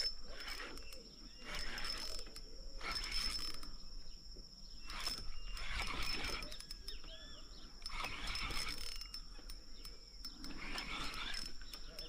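Fishing reel being cranked in repeated short bursts, its gears and ratchet clicking, as the angler works a fish caught in a snag. A thin, steady high tone runs underneath.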